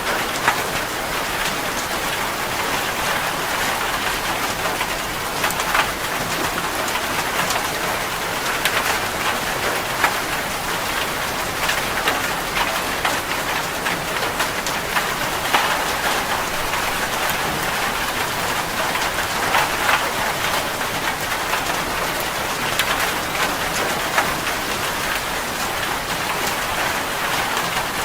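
Heavy rain falling on a metal roof: a steady hiss with many sharp, irregular drop strikes throughout.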